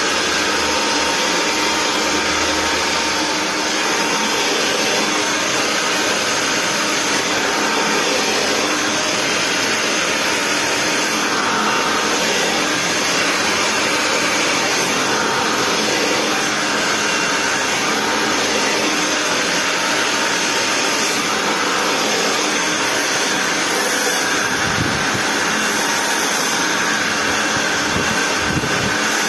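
Handheld hair dryer running steadily, blowing air over the hair during a round-brush blow-dry, with a faint steady whine under the rush of air.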